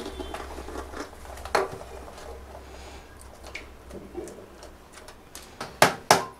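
Small clicks and scrapes of a live mud crab being handled in the hands, then near the end two sharp, heavy cleaver blows striking the crab.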